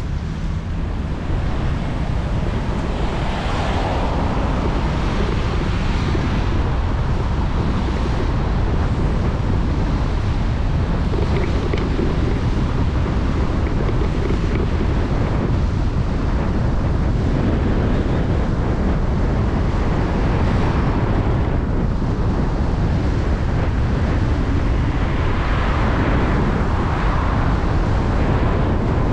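Wind buffeting the microphone of a camera on a moving vehicle, a heavy steady rumble and hiss mixed with road noise. It builds over the first couple of seconds as the vehicle gets up to speed, then holds steady.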